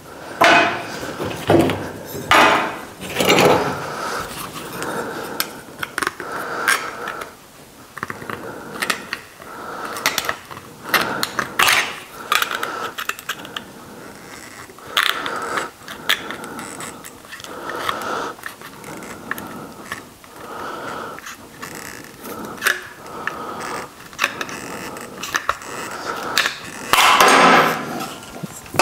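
Hand tin snips trimming a sheet-steel patch panel: a long series of short snipping clicks with pauses between runs, then a louder scraping noise near the end.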